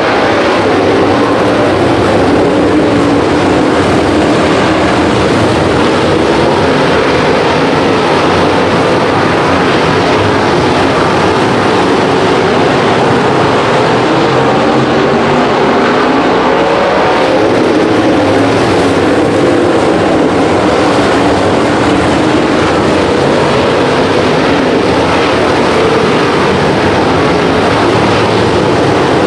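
Dirt-track race cars' V8 engines running flat out in a race. Several engines overlap in a continuous loud roar, their pitches wavering up and down.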